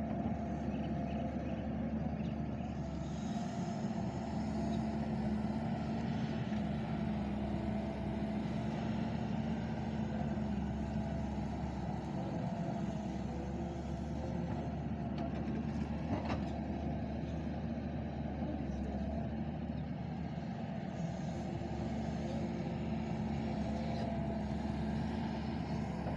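Doosan excavator's diesel engine running steadily while it digs and loads mud, with gentle swells in level and one sharp click about sixteen seconds in.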